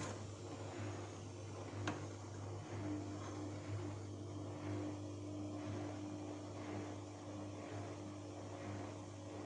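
A steady low hum, with one sharp click about two seconds in and a steady higher tone joining about a second later.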